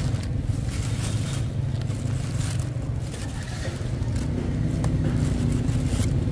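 Thin plastic bags crinkling and rustling as puffed corn sticks are handled and dropped into them, over a steady low rumble.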